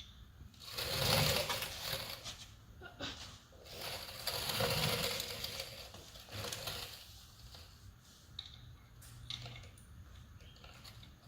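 Rapid mechanical clicking and rattling in two bursts of a second or two each, then a few scattered light ticks.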